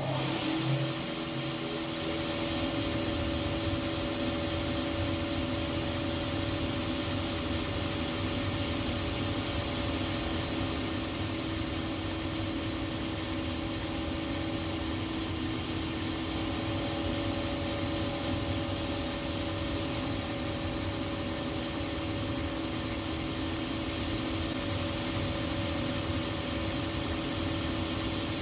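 Shoe finishing machine running steadily, its motor and spinning wheels giving a constant hum with an even whirring hiss, as a shoe's heel and sole edge are sanded against a wheel. The machine starts up at the very beginning.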